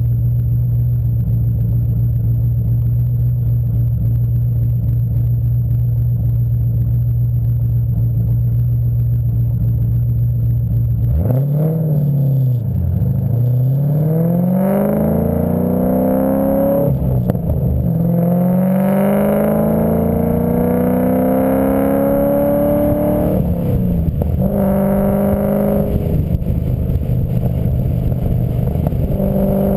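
A vehicle idling with a steady low hum, then pulling away about 11 seconds in. Its pitch rises under acceleration, drops sharply at a gear shift, and rises again in the next gear before easing off. This is a test for a noise in second and third gear.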